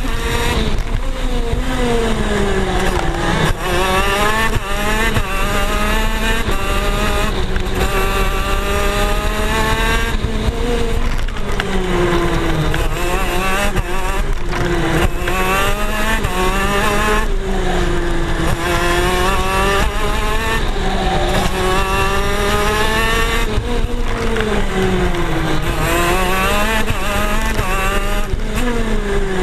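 A KZ shifter kart's 125cc two-stroke engine heard from on board at racing speed. Its pitch climbs repeatedly under acceleration, then drops sharply into the corners, about half a dozen times.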